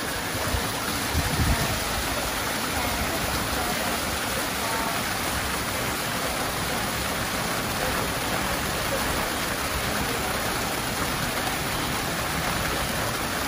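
Cold spring water pouring over a low stone ledge and splashing into a pool: a steady rush of falling water, with a few brief low bumps about a second in.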